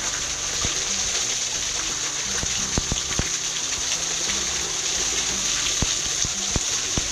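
Water pouring down a small waterfall, a steady rush and splash.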